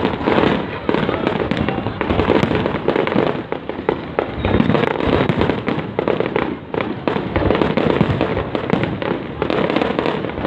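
Fireworks display going off in a dense, continuous barrage of bangs and crackles, with brief lulls twice.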